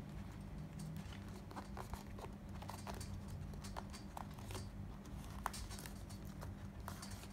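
Faint clicks and rustles of a rubber Nike sport watch band being pressed into its cardboard box tray, over a low steady hum.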